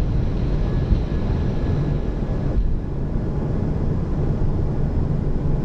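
Airbus A220-300 at takeoff thrust through rotation and liftoff: a steady rumble of its Pratt & Whitney PW1500G geared turbofans and rushing air, heard from the cockpit, with faint steady whine tones above it.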